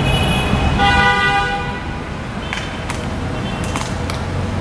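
A vehicle horn gives one honk about a second in, over steady street traffic rumble. It is followed by several short, sharp clicks.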